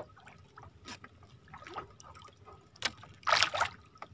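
Water dripping and trickling, with small splashes and light knocks, as a wet handline is hauled in by hand over the side of the boat. A louder splashing rush comes about three seconds in.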